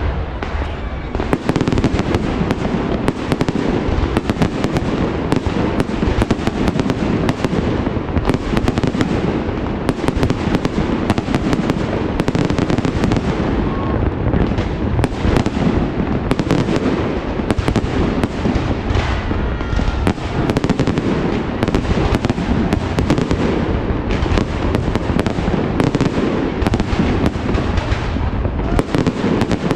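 Fireworks going off without let-up: many overlapping bangs and crackles, one after another.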